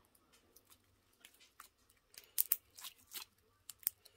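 Slime being kneaded and stretched by hand, giving faint, irregular little clicks and pops, more of them in the second half.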